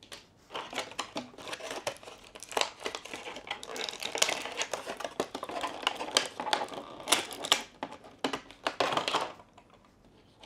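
Clear plastic blister tray crinkling and crackling, with many sharp clicks, as fingers work a small accessory out of it. It starts about half a second in and stops about a second before the end.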